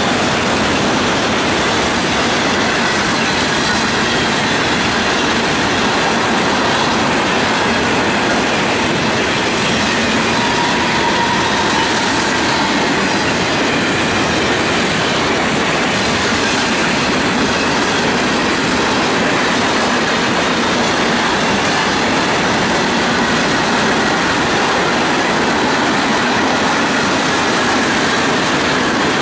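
Freight train cars rolling past steadily and loudly, with the continuous rumble and clatter of steel wheels on rail.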